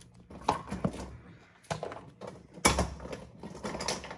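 Mussels dropped by hand into a stainless steel stockpot, their shells knocking and clacking against the metal and each other in several separate knocks, the loudest about two and a half seconds in.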